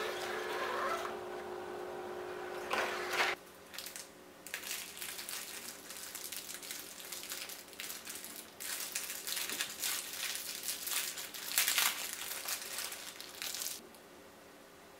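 Clear plastic toy packaging being handled: small plastic boxes shuffled in a pile for the first few seconds, then a thin cellophane bag crinkling and crackling as it is opened to unwrap a small mochi squishy toy. The crinkling stops a little before the end.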